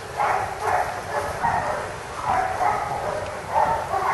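A dog barking, a string of short barks with brief gaps between them.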